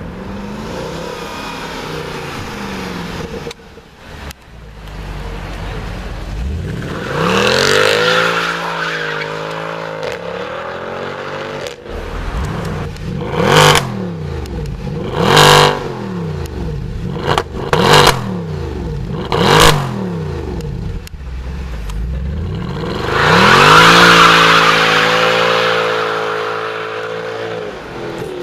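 Mercedes C63 AMG's 6.2-litre naturally aspirated V8 being revved and driven hard. A rising and falling rev comes about a third of the way in, then a series of short sharp throttle blips at standstill, and a long full-throttle run near the end.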